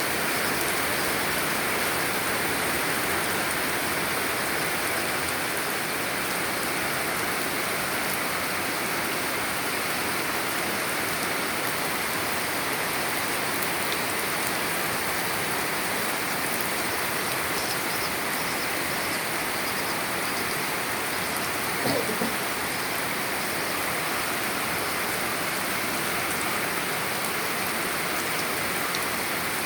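Heavy rain falling steadily, a dense even hiss of downpour. One brief sound rises above it about three-quarters of the way through.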